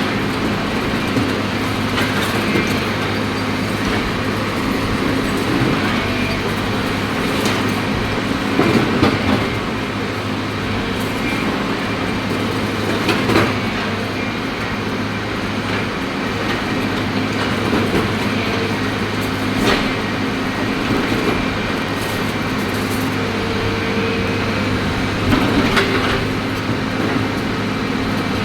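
CAT excavator's diesel engine running steadily under hydraulic load, with occasional loud knocks and scrapes every few seconds as the machine breaks up concrete.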